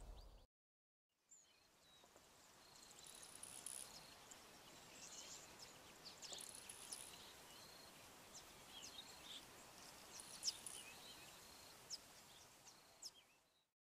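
Male yellow bishop giving its faint, high-pitched, insect-like sizzling display call in repeated bouts laced with sharp ticks. This is a courtship display to females. The sound cuts out briefly right at the start, then resumes.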